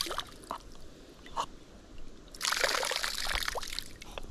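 Water tipped out of a small plastic container, trickling and splashing onto shallow creek water in a pour of about a second and a half that starts about halfway through, after a few light clicks.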